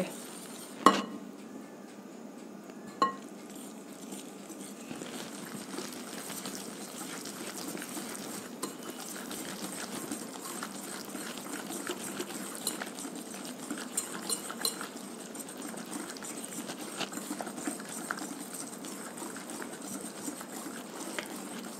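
Wire whisk beating powdered sugar and oil in a glass bowl: a quick, steady scraping and ticking of the wires against the glass. Two sharp clinks stand out in the first few seconds.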